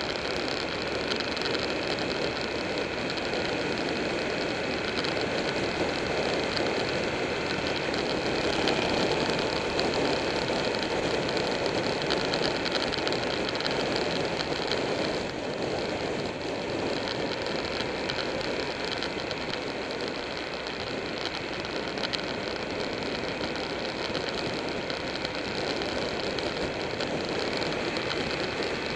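Buell 1125R motorcycle's V-twin engine running at a steady cruise, heard from on board and mixed with a steady rush of wind noise on the microphone.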